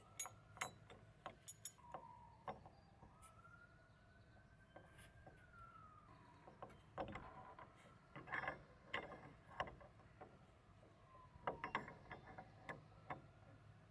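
Sharp metal clicks and clinks in small clusters as a black metal cane bolt on a wooden gate is worked up and down in its bracket and test-fitted. Behind it, a faint distant siren slowly rises and falls.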